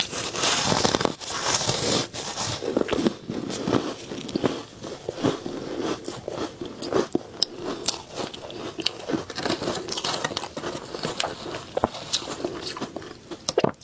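Close-miked crunching of matcha-powdered frozen ice: a big bite at the start, then steady chewing of the icy mouthful with many small crackling crunches.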